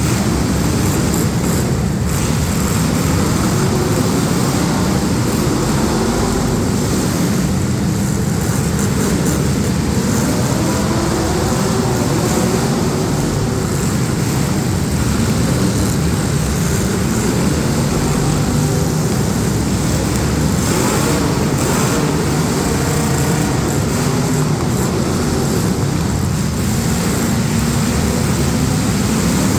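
Several demolition derby cars' engines running and revving together, a loud continuous din of engines with pitch rising and falling.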